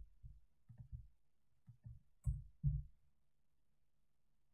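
Computer keyboard being typed on: a handful of faint, dull, irregular keystroke taps that stop about three seconds in.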